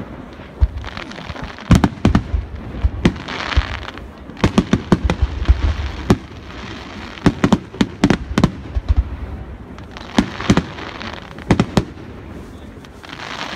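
Fireworks display: aerial shells bursting with sharp bangs, many of them in quick clusters, with spells of hiss between the reports.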